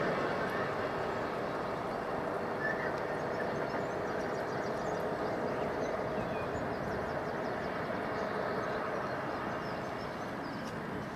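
A Class 66 diesel locomotive running light engine at low speed, its two-stroke V12 diesel engine giving a steady drone that eases slightly toward the end.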